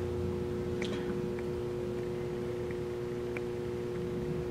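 A steady background hum holding two even tones over a low rumble, with a few faint ticks.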